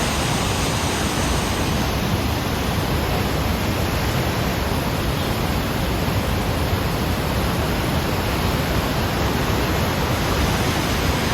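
The Rhine Falls close up: a steady, loud, unbroken rush of water pouring over the rocks all around.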